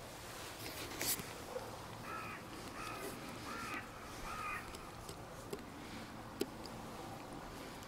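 A crow cawing four times in a row, short calls close together. A sharp click, the loudest sound, comes about a second in.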